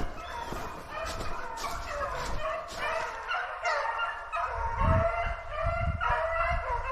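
A pack of rabbit hounds baying, several voices overlapping in repeated calls as they run a rabbit's trail, with a few dull low thumps about two-thirds of the way through.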